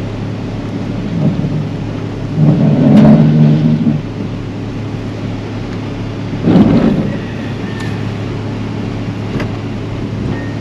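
A road grader's diesel engine working as it pushes logs off a flooded bridge, revving up about two and a half seconds in and again briefly near seven seconds. Under it run a steady engine hum and the constant rush of floodwater.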